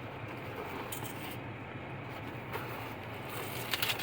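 Steady low background hum, with a few faint light clicks and rustles, more of them near the end.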